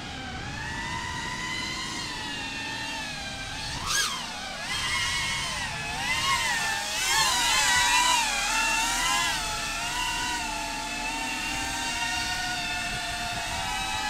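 FPV drone's brushless motors and propellers whining as it flies, the pitch rising and falling with the throttle. About four seconds in there is a sharp, brief surge in pitch, then a stretch of quick ups and downs that is loudest a little past halfway.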